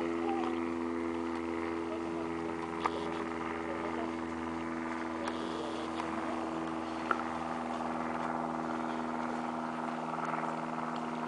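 A steady mechanical hum of several unchanging tones, like an engine or motor running at constant speed, with a few faint short clicks.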